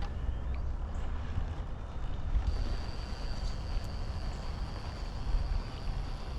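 Wind rumbling on the microphone. A thin, steady high-pitched whine joins about two and a half seconds in.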